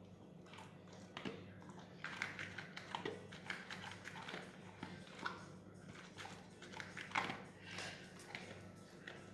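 Dog eating dry kibble from a plate, a run of short, irregular crunches and clicks, loudest about seven seconds in.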